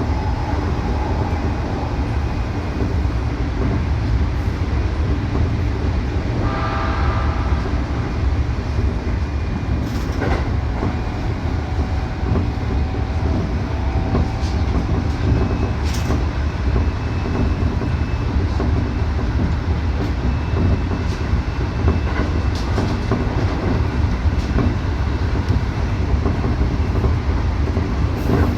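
Keikyu electric train running at speed, heard from inside the car: a steady rumble of wheels and motors with occasional sharp clicks over the rails. A brief tone sounds about seven seconds in.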